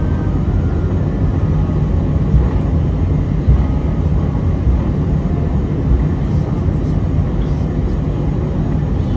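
Steady low rumble inside an Airbus A320's cabin as the airliner rolls along the ground after landing, its jet engines running.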